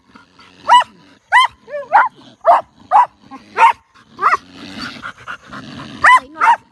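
Dogs giving short, high-pitched barks into a burrow where a skunk is holed up. There are about nine barks at roughly two a second, with a pause of about a second and a half past the middle.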